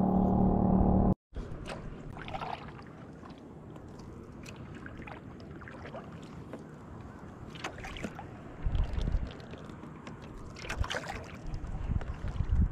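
A loud, steady noise with a low hum cuts off about a second in. Then a kayak paddle dips and pulls through calm water: light splashes and drips at each stroke, with a few louder strokes near the end.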